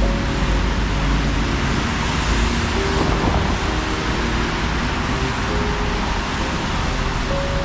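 Steady city street traffic noise, a continuous hiss with a low rumble, with faint held notes of background music over it.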